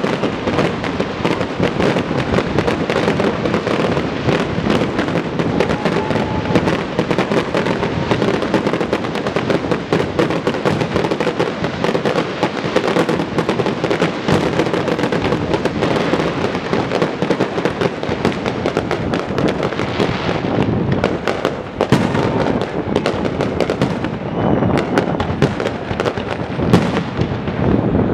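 Fireworks display: a dense, unbroken barrage of crackling and rapid bangs from bursting shells, with sharper, more separate bangs over the last few seconds.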